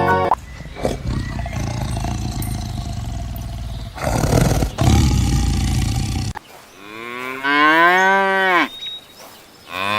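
Cattle mooing: one long, low, rough moo lasting about six seconds, then a pause and two shorter, higher calls that rise and then fall in pitch.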